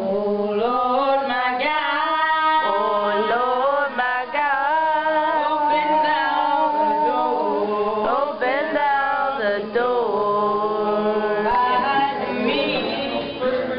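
Music with singing: a song of long held notes that slide between pitches over a steady low note.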